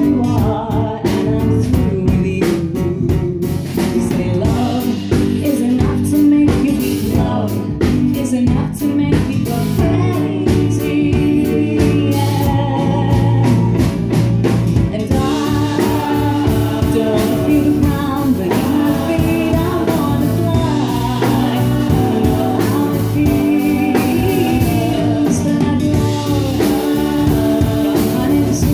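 A woman singing a pop ballad live with a small band: acoustic guitar, bass guitar and drums.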